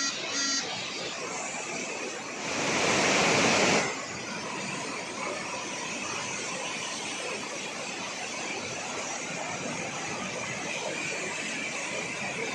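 Heavy water rushing steadily, with a louder, hissing surge for about a second and a half a couple of seconds in.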